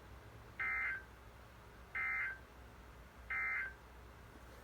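Three short bursts of warbling data tones from a NOAA Weather Radio, the EAS SAME end-of-message code that closes a warning broadcast. Each burst lasts about a third of a second, and they come about 1.3 seconds apart.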